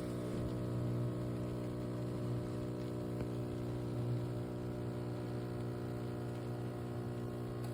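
Espresso machine's vibration pump running with a steady, even buzzing hum.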